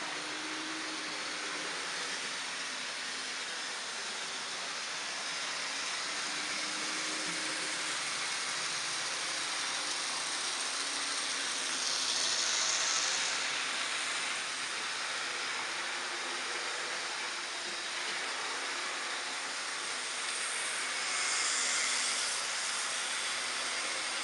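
HO scale model train running past on the layout track, over a steady hiss. It gets louder about halfway through as the locomotive passes close, and again near the end as freight cars go by.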